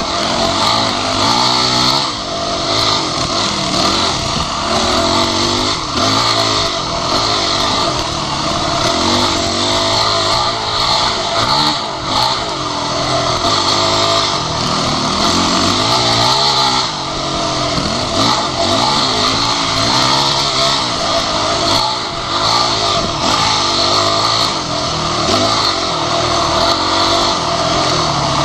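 Dirt bike engine close up, its revs rising and falling every second or two as the throttle is worked, with knocks and rattles from the rough trail.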